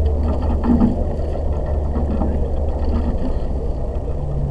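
Eight-oared rowing shell under way: a steady low rumble of wind and rushing water on a camera mounted in the boat, with a few faint knocks.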